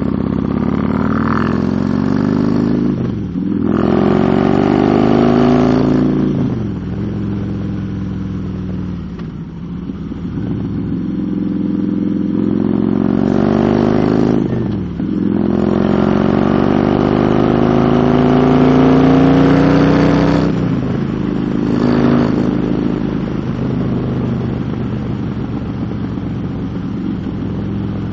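Motorcycle engine pulling through the gears: its pitch climbs over several seconds, drops sharply at each upshift, and climbs again, several times over. Near the end it settles to a steadier cruise.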